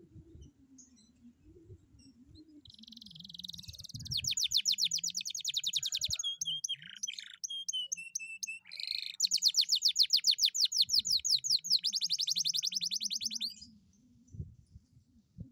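Domestic canary singing. It opens about two and a half seconds in with a buzzy phrase, goes into a fast rolling trill, then a passage of slower whistled notes, then a second long fast trill that stops shortly before the end.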